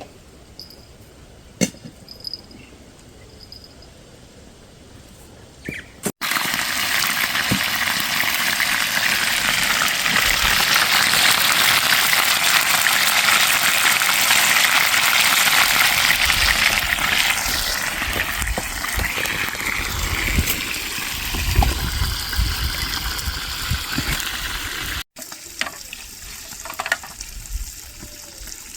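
A steady, loud rush of running water that starts and stops abruptly, lasting about nineteen seconds, with a few low thuds near its end.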